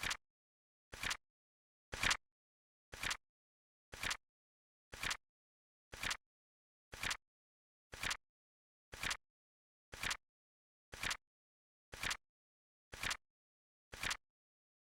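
Flip clock timer's flip sound effect: a short, crisp click exactly once a second, as each second card flips, with silence between.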